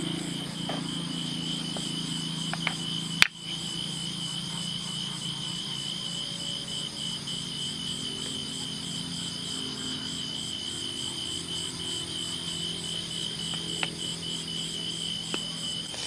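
Steady chorus of night insects, crickets, chirring in a fast, even pulse, with one sharp click about three seconds in.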